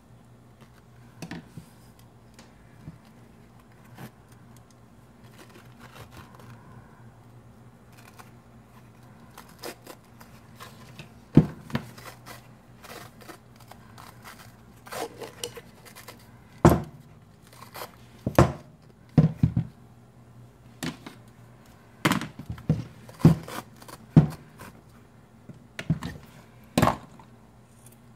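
McNett camo tape, a stretchy fabric wrap, being unrolled, peeled and wrapped by hand around a rifle stock: scattered rustling and peeling with sharp knocks and clicks as the rifle is handled, the loudest in the second half, and scissors cutting the tape near the end. A faint steady hum lies underneath.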